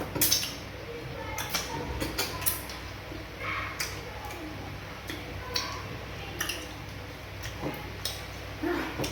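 Close-miked eating sounds: irregular wet mouth clicks and smacks of someone chewing fufu and fish with banga soup, several every second.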